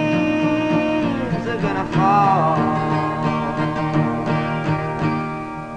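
Folk song ending: a male voice holds the last sung note over steady acoustic guitar strumming, and a shorter wavering note follows about two seconds in. The guitar keeps strumming as the music fades toward the close.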